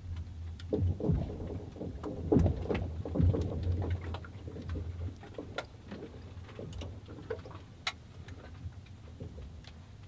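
Melting lake ice crackling and popping: a cluster of sharp cracks with deep thumps in the first few seconds, then scattered small clicks and ticks.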